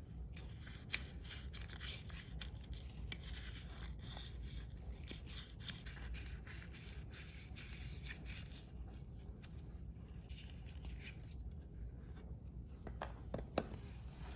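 Hand scraping and rubbing on the metal of a bronze censer, in uneven scratchy strokes, with a sharp click about a second in and a couple more near the end.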